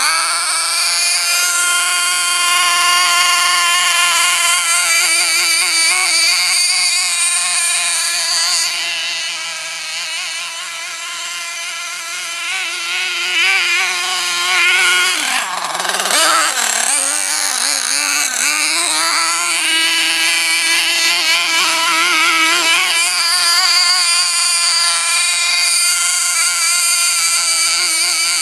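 A 1:8 scale RC monster truck running flat out with a steady high-pitched motor note that wavers slightly. About fifteen seconds in, the pitch drops sharply, then climbs back up and holds high again.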